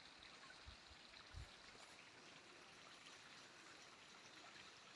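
Faint, steady rush of a small creek flowing in the canyon below, with two soft low thumps about a second in.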